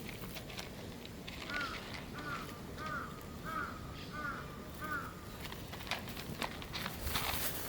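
An animal calling six times in a quick, even series, each call short and arched, with scattered rustling and clicking around it.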